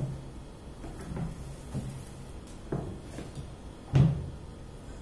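Handling knocks and bumps as things are moved about in a low container: a thump at the start, a few lighter knocks, then a louder thump about four seconds in.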